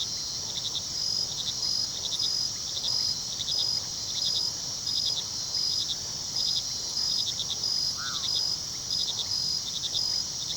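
Night chorus of crickets: rhythmic chirps of a few quick pulses each, repeating about one and a half times a second, over a steady high insect drone. One short rising-and-falling call stands out once, late on.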